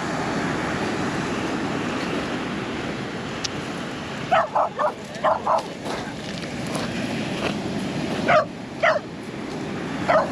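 A dog barking in short, high yips: a quick run of several about four seconds in, two more around eight to nine seconds, and another at the end. Steady surf from breaking ocean waves runs underneath.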